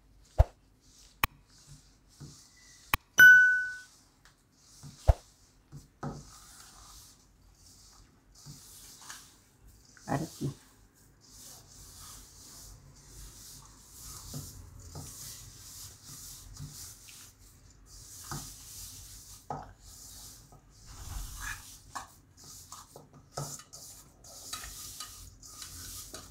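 A hand mixing and kneading semolina and flour into creamed ghee and sugar in a stainless steel bowl: repeated soft rubbing and squishing strokes, turning into biscuit dough. In the first few seconds there are a few sharp clicks and one short high tone, the loudest sound of all.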